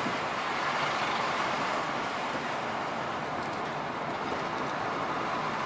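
Steady road noise of a truck driving along the highway: engine and tyre drone at an even speed.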